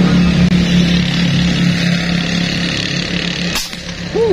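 A motor vehicle's engine running steadily with a low hum. A single sharp crack comes about three and a half seconds in.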